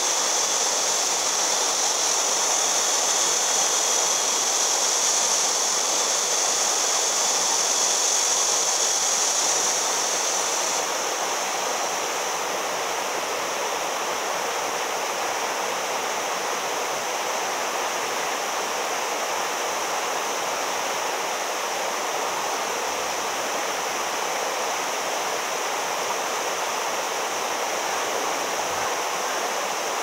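Steady rush of flowing and falling water, a constant hiss with no pulses, dropping slightly in level and brightness about eleven seconds in.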